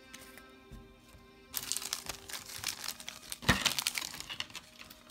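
Faint background music, then from about a second and a half in, foil booster-pack wrappers crinkling as they are crumpled and handled, with one sharp crack near the middle.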